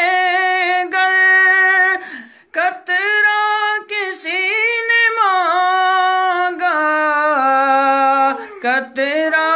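A man singing an Urdu naat unaccompanied, drawing out long, wavering, ornamented notes with short breaks for breath.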